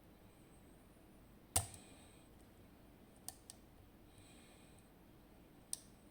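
Lock picking on a zIKON SK6 Sperrwelle Extra Code lock: sharp metal clicks of the pick and tension tool working the sidebar finger pins. One loud click comes about one and a half seconds in, then three lighter ones, with a faint short scrape in the middle.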